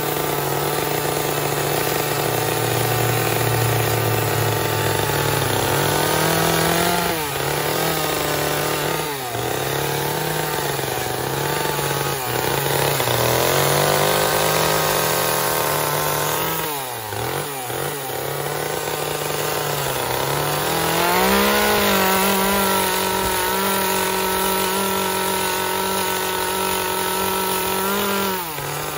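Two-stroke chainsaw running and being revved, its pitch sagging and recovering several times and dropping right down about halfway through. It then climbs to a high, steady pitch for several seconds and eases off just before the end.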